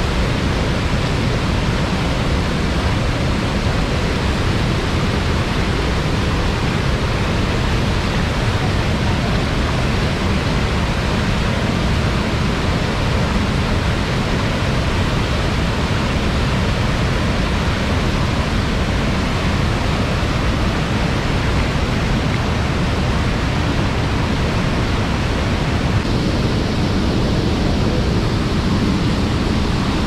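Muddy river water pouring over a low concrete weir and churning in the rapids below: a loud, steady rush of water.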